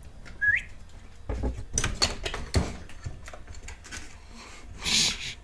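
A short rising whistle, then a few scattered knocks and scuffs as a small terrier climbs up onto a window sill, with a brief rustle near the end.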